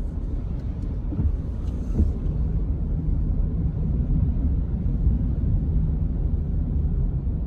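Steady low rumble of a vehicle driving along a road, heard from inside the cabin: engine and tyre noise.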